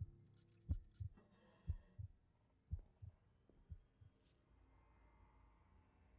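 Heartbeat sound effect: paired low lub-dub thumps about once a second, growing fainter and stopping about four seconds in. A brief high click follows, then a faint low hum.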